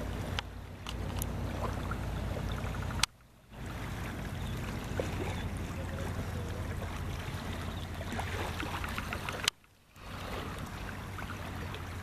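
Steady beach ambience: a low wind rumble on the microphone over a wash of surf. It cuts out briefly twice, each time just after a sharp click.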